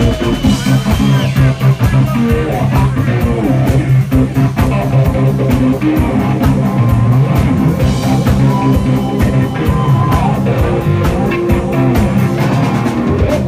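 Live blues-rock band playing an instrumental passage: a semi-hollow-body electric guitar plays a lead line with notes that bend in pitch, over bass guitar and a steady drum-kit beat.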